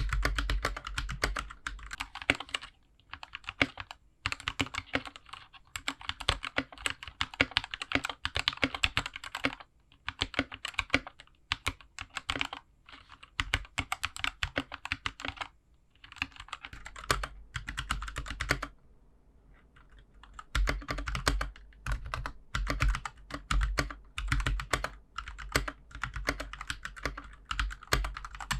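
Typing on a GK61 mechanical keyboard fitted with Gateron Milky Yellow linear switches: quick runs of keystrokes broken by short gaps, with a longer pause about two-thirds of the way through.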